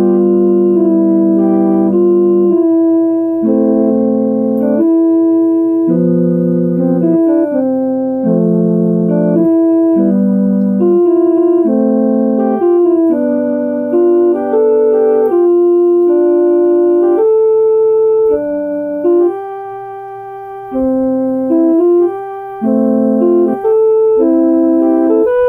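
Electronic keyboard playing a slow piece of held chords that change about once a second, with a brief softer passage about three quarters of the way through.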